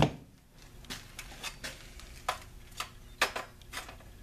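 Short, sharp metallic clicks and taps, a few a second, from a perforated steel pot stand being handled and set over a burning rope stove made from a tin can. A louder click comes right at the start.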